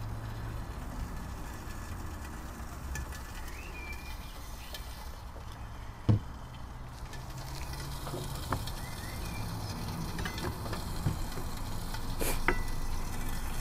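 Chicken faintly sizzling in a pan, over a steady low hum, with a single knock about six seconds in.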